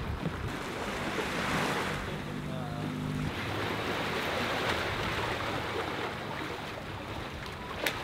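Wind buffeting the microphone over river water washing on a slipway, with a brief low hum a couple of seconds in and a sharp click near the end.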